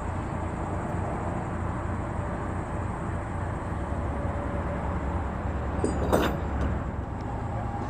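Steady low engine rumble, with a short sharp clatter about six seconds in.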